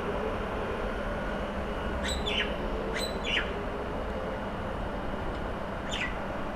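Three short, falling bird chirps, two about a second apart and one more near the end, over a steady low background hum.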